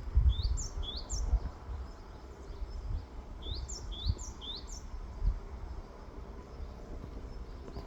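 A small songbird repeating short rising chirps, a pair near the start and a run of three in the middle, over a low uneven rumble.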